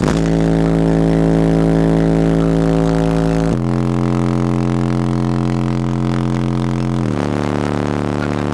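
Large in-car subwoofer playing loud, sustained bass tones from the car's audio system, each note held steady and stepping down in pitch twice, about three and a half seconds apart.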